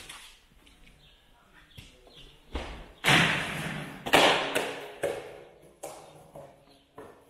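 A skateboard being ridden at a metal-framed skate box: a low thump about two and a half seconds in, then two loud scraping, rolling stretches a second apart, each starting sharply and fading, then a few lighter clacks of the board.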